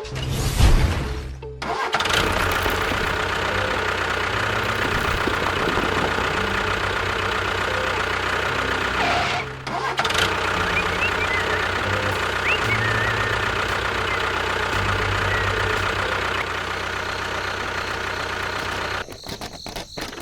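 An engine-like motor sound from a mini tractor or bulldozer. It starts up with a loud, uneven burst, then runs steadily, dips briefly about halfway through and cuts off shortly before the end.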